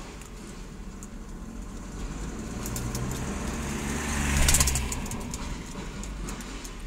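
A motor vehicle passing by: its engine sound swells to its loudest about four and a half seconds in, then fades away.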